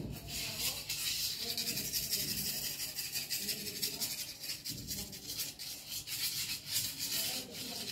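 A thin wooden stick scraping and rubbing across a concrete floor in quick, irregular strokes.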